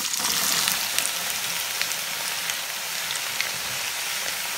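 Diced carrots dropped into hot oil in a stainless steel frying pan, sizzling hard as they hit about the start, then frying with a steady crackling sizzle and small pops.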